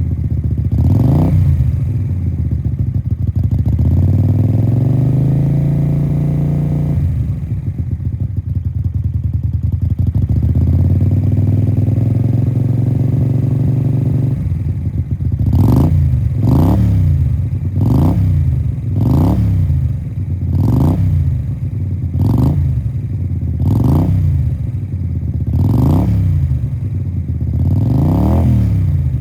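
Suzuki Intruder 250LC's V-twin, breathing through an open-end Harley V-Rod silencer on a custom two-into-one pipe, idling and revved. Twice it is run up and held at higher revs, dropping sharply back to idle, then it gets about nine quick throttle blips at roughly one-and-a-half-second intervals.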